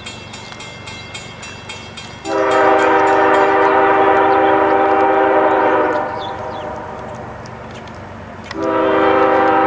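A railroad crossing bell rings about three times a second. Then a CSX freight locomotive's multi-tone air horn sounds one long blast from about 2 seconds in to about 6 seconds, and starts a second long blast near the end, as the train approaches the grade crossing. A low locomotive rumble runs underneath.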